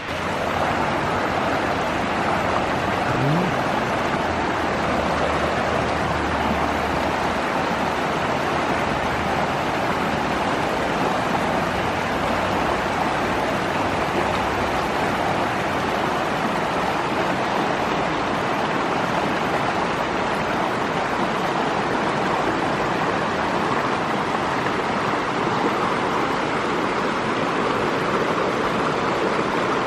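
Creek water rushing steadily, an even, unbroken rush.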